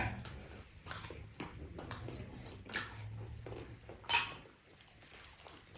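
Mealtime table sounds: scattered light clicks and clinks of cutlery and dishes, with one sharper, louder noise about four seconds in.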